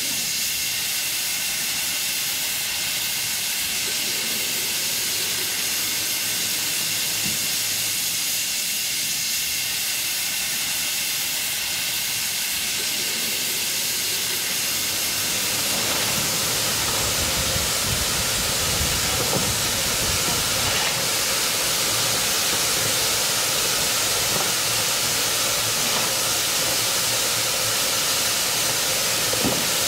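Steam hissing steadily from a narrow-gauge steam locomotive, with a lower rumble joining it about halfway through.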